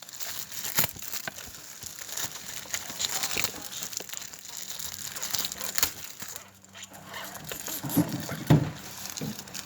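Plastic packaging crinkling and rustling by hand, with tearing, as medallion packs are opened, briefly pausing about two-thirds of the way through.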